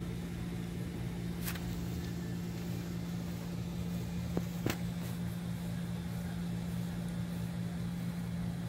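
A steady low mechanical hum with one constant pitch, broken by a few sharp clicks around the middle.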